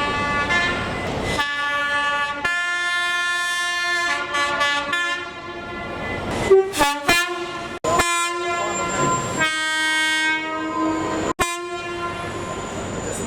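Train horns sounding: several long blasts and a run of short toots in quick succession, each a chord of steady tones, with abrupt cuts from one horn to the next.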